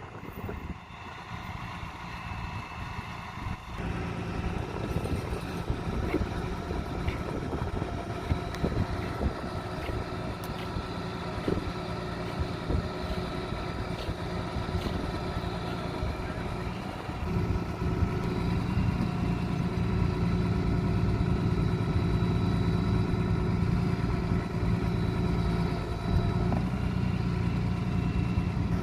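A vehicle engine running steadily at idle, growing louder about two-thirds of the way through.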